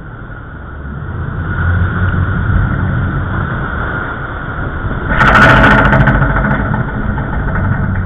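Rescue boat's engines run steadily, growing louder about a second in as the boat drives up a large breaking wave. About five seconds in the wave breaks over the bow with a loud crash of water and spray lasting about a second, the loudest sound here.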